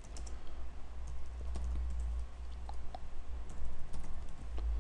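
Typing on a computer keyboard: irregular, quick key clicks over a steady low hum.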